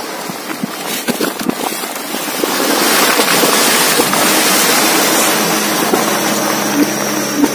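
Dump truck engine running steadily with the bed tipped up, and a rushing noise of the sand load sliding out of the bed onto the pile, which swells louder about two and a half seconds in.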